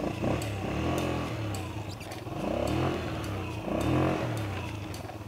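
Small youth ATV engine running under way, its pitch rising and falling several times as the throttle is worked.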